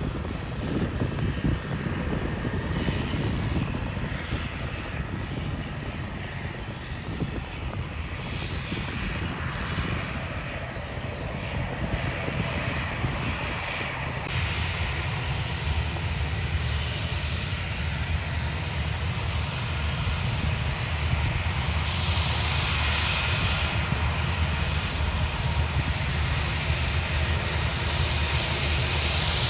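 Aircraft engine noise, a steady rush with a low hum that grows louder about halfway through and stays loud.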